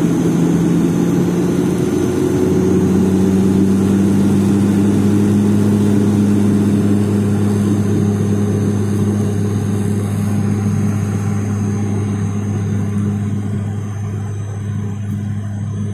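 Turboprop airliner's engines and propellers droning steadily, heard inside the cabin: a loud low hum with a fixed pitch that steps up slightly about two seconds in.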